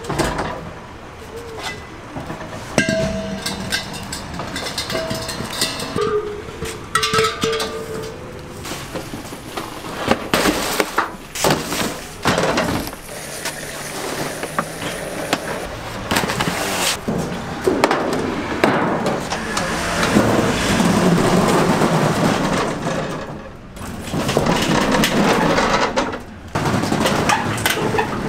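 Repeated knocks, clunks and scraping as plastic coolers and other stall gear are handled and shifted on a truck's steel diamond-plate lift gate. The knocking is sharp and irregular, with a longer run of dense scraping and shuffling in the second half.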